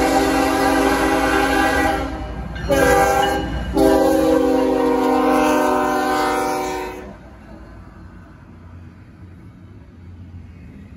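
Kansas City Southern freight locomotive's air horn sounding a chord of several notes: a long blast, a short one, then a final long one, ending the grade-crossing signal as the engine reaches the crossing. The horn stops about seven seconds in, leaving the lower rumble of the intermodal train rolling past.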